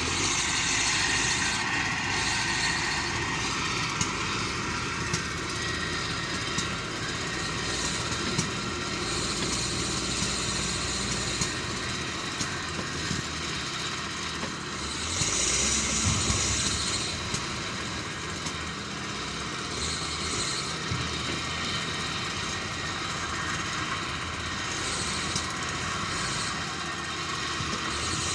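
Diesel engine of a working heavy construction machine running steadily, with a brief rise in engine speed about halfway through and occasional sharp clicks.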